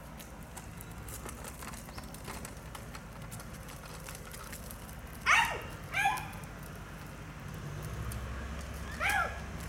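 A dog barking: two barks in quick succession about halfway through and one more near the end.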